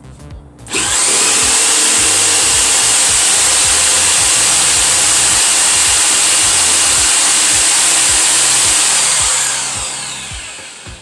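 Bosch JS260 jigsaw's 6-amp motor starting suddenly about a second in and running steadily as the blade cuts through a small piece of 1x2 wood, then winding down with falling pitch near the end.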